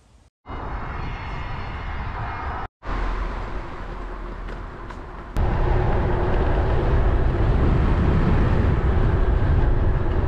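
Wind rushing over the camera microphone while riding a tandem bicycle, a steady low rumble. It breaks off briefly twice near the start and jumps louder about five seconds in.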